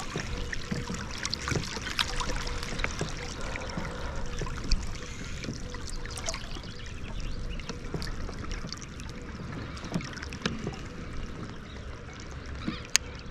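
Water lapping and trickling against a kayak hull, with scattered light clicks and knocks.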